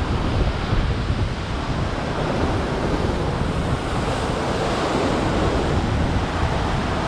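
Ocean surf surging and breaking against the foot of a sea cliff, with strong wind buffeting the microphone in a steady low rumble.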